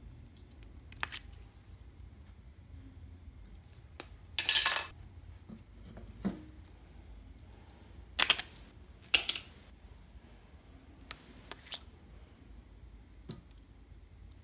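Hard plastic clicks and short crackles as a small flower-shaped plastic slime container and its snap-on lid are handled. There are several separate sounds, the loudest a half-second crackle about four seconds in and two sharp clicks a little past halfway.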